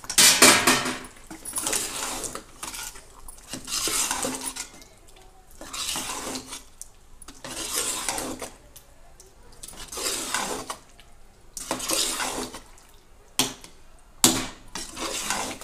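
A metal ladle scraping and stirring in a metal cooking pot, about one stroke every two seconds, mixing fried potatoes into thick masala gravy.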